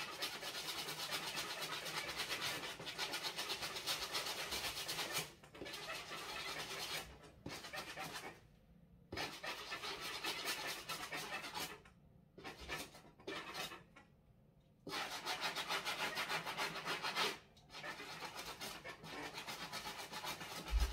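A scrub brush scrubbing an Adidas Yeezy Boost 350 Zebra sneaker in quick back-and-forth strokes. The strokes come in spurts with several short pauses.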